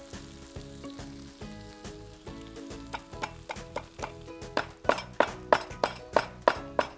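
Whole black peppercorns being pounded in a stone mortar with a stone pestle. Sharp knocks start about three seconds in and settle into a steady beat of about three strikes a second.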